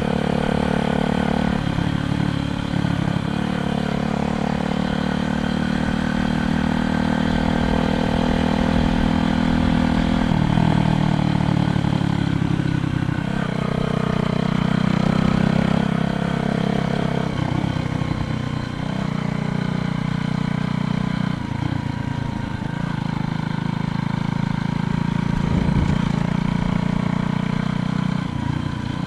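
A motor engine running steadily throughout, its pitch shifting up and down in steps every few seconds.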